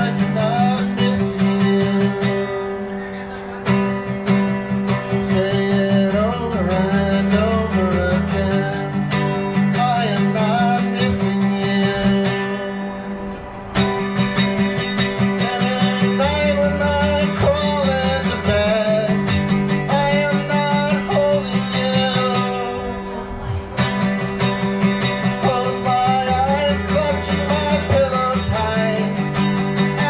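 A man singing a slow song while strumming a guitar, the chords easing off briefly about every ten seconds between sung phrases.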